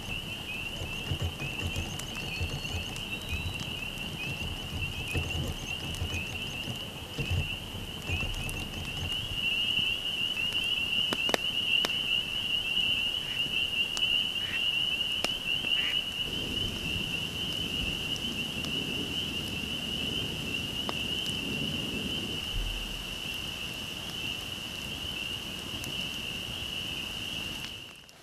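A dense chorus of frogs peeping high and continuously, with a campfire crackling and giving a few sharp pops.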